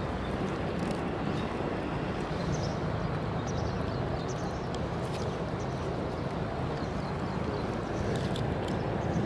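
Steady outdoor background noise, a low rumble with hiss, with faint small clicks scattered through it.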